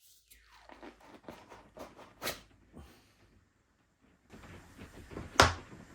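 Handling noises from old golf clubs being picked up and turned over: scattered light clicks and rustles, with a sharper knock about two seconds in and the loudest knock about five and a half seconds in.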